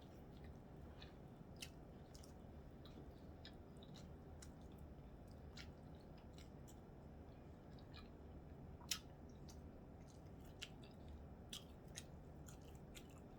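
Faint chewing of a corned beef sandwich: soft, wet mouth clicks scattered throughout, with one sharper click about nine seconds in.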